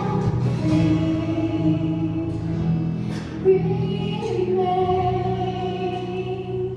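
Gospel choir singing with instrumental backing, holding long notes as the song draws to a close.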